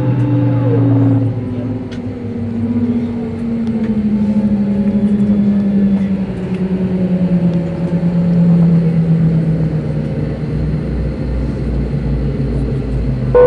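Airliner jet engine spooling down after shutdown, heard from inside the cabin, its whine falling slowly and steadily in pitch over a low hum.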